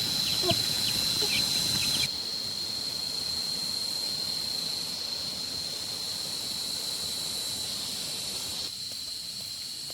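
Insects droning steadily at one high pitch, with a few short bird chirps in the first two seconds.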